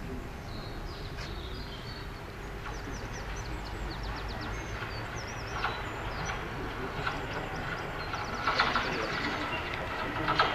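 London Underground train on the track at a surface station: a steady low rumble, with rattling clicks growing louder from about eight and a half seconds in.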